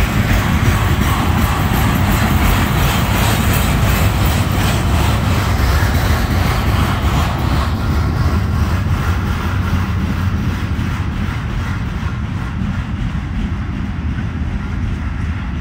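Freight cars loaded with trash containers rolling past on the rails, a steady rumble of steel wheels on track that fades in the second half as the end of the train draws away.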